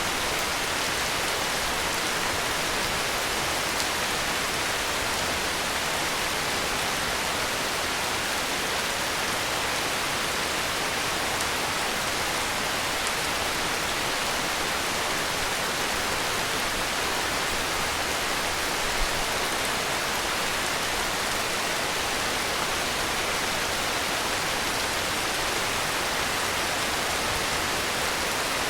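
Steady heavy rain: a dense, even hiss of rainfall, with now and then a faint tick of a single drop.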